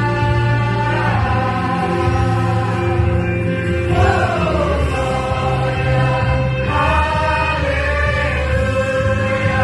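Vocal group singing a Christian song in harmony: several voices holding long notes and moving between them, over a steady low bass.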